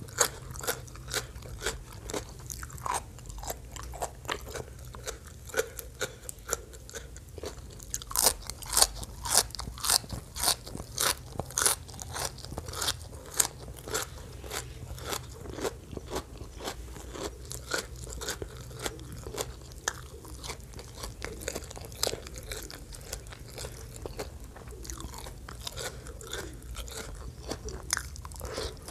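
Close-miked chewing of crisp raw vegetables: a steady series of wet, sharp crunches, with a run of louder, quicker crunches about a third of the way in.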